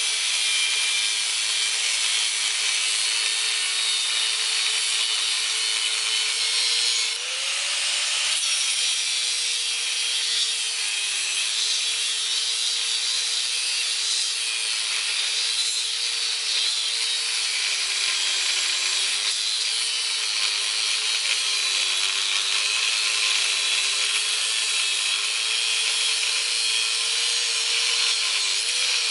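Angle grinder with an abrasive cut-off disc cutting through the steel shell of a refrigerator compressor: a steady motor whine under harsh grinding hiss, the pitch wavering and sagging as the disc is pressed into the metal. About seven seconds in, the motor briefly speeds up as the disc eases off the cut, then settles back under load.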